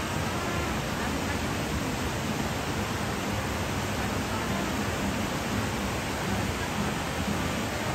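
Steady, even rushing noise with no breaks or distinct events.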